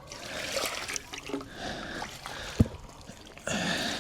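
Water trickling and splashing, with a few clicks and one sharp knock about two and a half seconds in.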